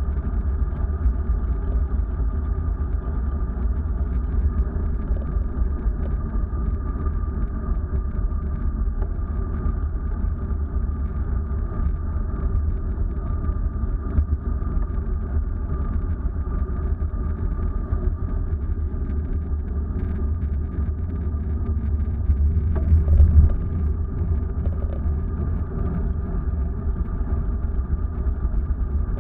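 Vehicle driving along a road, heard from inside: a steady low rumble of engine and road noise with a faint steady whine above it. The rumble swells briefly about three quarters of the way through.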